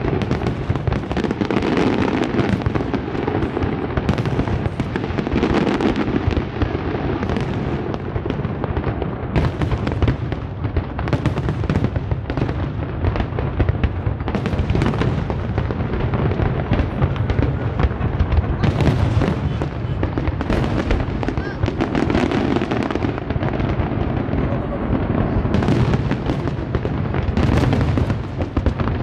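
Aerial firework shells bursting in a dense, continuous barrage, bang after bang in quick succession without a pause.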